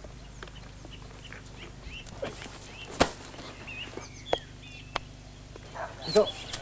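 Outdoor ambience of small birds chirping, broken by a few sharp clicks or knocks, the loudest about three seconds in.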